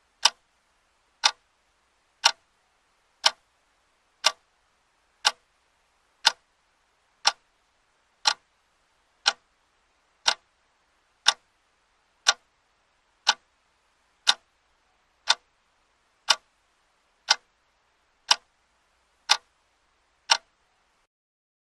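Clock's second hand ticking with a sharp, even click once a second. The ticking stops near the end.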